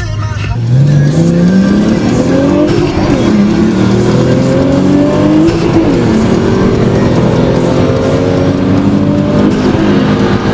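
Nissan RB25DET turbocharged straight-six of an R34 Skyline GT-T at full throttle down a drag strip, heard from inside the cabin. The revs climb and drop at about three upshifts. The owner says the clutch was slipping on this run.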